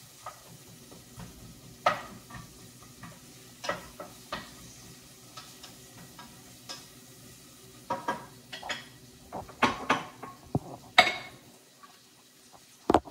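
Wooden spoon stirring and scraping in a metal pot of frying onions over a low sizzle, with scattered sharp knocks of spoon on pot that come thicker about eight to eleven seconds in, and one loud knock near the end.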